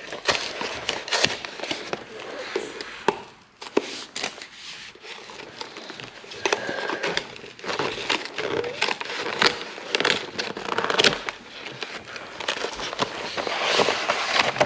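Cardboard and plastic packaging of a Pokémon card-game box being pulled open by hand: irregular rustling and crinkling with many sharp clicks, snaps and crackles as flaps and the plastic tray come apart.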